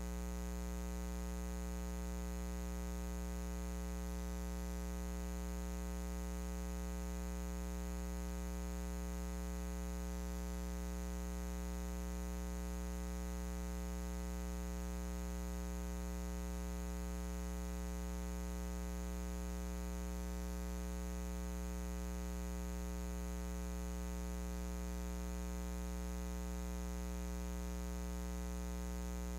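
Steady electrical mains hum, low and buzzy with many overtones, over faint hiss.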